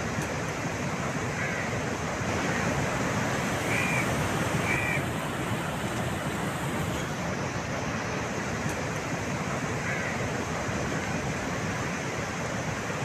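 Steady rushing noise. A crow caws a few times, twice in quick succession about four to five seconds in.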